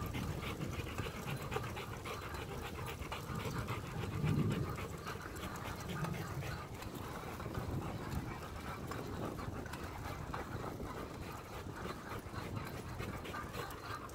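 A German Shepherd panting in a fast, steady rhythm as it runs beside a bicycle, over a steady low rumble from the moving bike.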